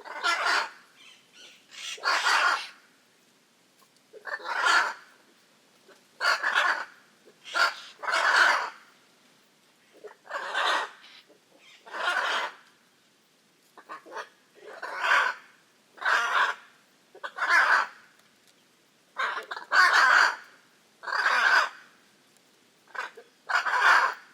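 Hyacinth macaws calling: a string of loud, harsh, raucous squawks, each about half a second long, repeated every second or two.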